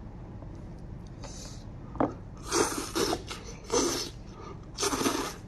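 Close-miked mouth noises of a person eating a cooked lamb's head: a sharp click about two seconds in, then three or four short, loud, noisy bursts.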